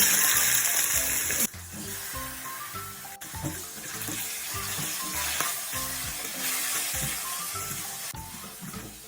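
Food sizzling in hot oil in a pan: a loud burst of sizzle for the first second and a half, then a steadier, quieter sizzle.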